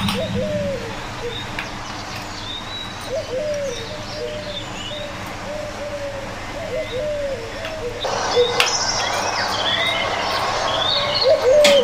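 Doves cooing in short, repeated low calls, with smaller birds chirping higher up. A steady background hiss rises in level about eight seconds in.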